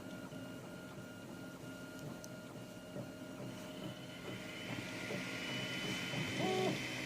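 Anet A8 3D printer printing, its stepper motors whining in short, evenly repeating pulses as the print head moves, then changing after about four seconds to a steadier, higher whine with more hiss and a little louder.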